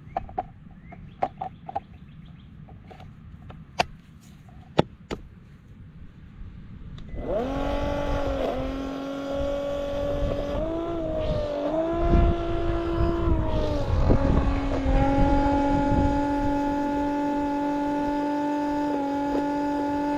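A few sharp clicks and knocks as the battery is fitted. About seven seconds in, a Milwaukee M18 cordless transfer pump's motor starts with a rising whine and then runs with a steady high-pitched whine, its pitch stepping a few times as it pumps water on a freshly fitted 6.0 battery.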